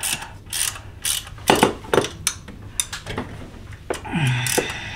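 Ratchet wrench clicking in short irregular runs as a bolt of the intake support bracket is tightened into the engine's aluminum cylinder head.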